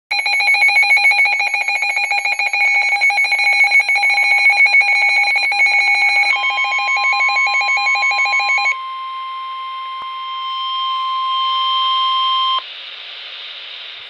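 NOAA weather radio receiver sounding an alert: a loud, fast warbling alarm beep for about six seconds, then the steady single-pitch NOAA Weather Radio warning alarm tone, overlapped at first by a second warble and then alone, cutting off sharply about twelve and a half seconds in. Static hiss follows.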